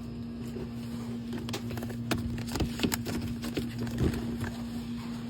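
Small plastic cosmetic items, such as lipstick tubes and their packaging, clicking and knocking together as they are handled, in an irregular run of taps. A steady low hum runs underneath.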